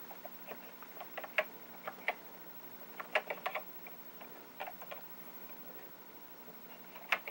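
Commodore 64 keyboard keys being typed in short, irregular runs of clicks as the JiffyDOS disk-format command is entered.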